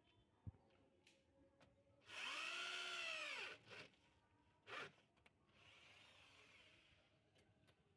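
Power drill with a hex socket driving a bolt into concrete. One run of about a second and a half, the motor's pitch rising and then falling, is followed by two short trigger blips.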